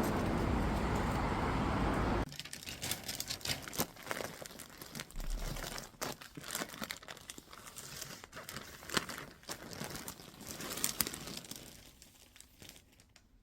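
A loud, steady rushing noise that stops abruptly about two seconds in, followed by irregular crinkling and rustling with sharp clicks, fading toward the end.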